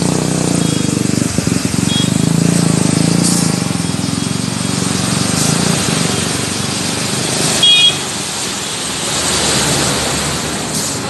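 Motor vehicles driving through deep floodwater: a truck's engine rumbles steadily over the noise of splashing and rushing water. A short, high-pitched horn beep sounds about two-thirds of the way in, and after it the water noise is louder than the engine.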